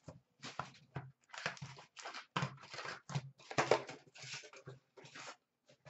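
A box of 2017-18 Upper Deck SPx hockey cards being torn open by hand: a string of short, irregular tearing and rustling sounds of card stock and packaging.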